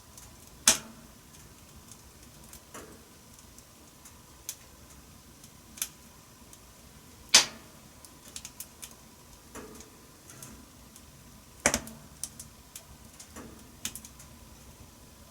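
Wood fire in a wood-burning stove crackling: irregular sharp pops and snaps over a low hiss, with three loud pops (just after the start, about halfway, and about three-quarters through) among many smaller ticks.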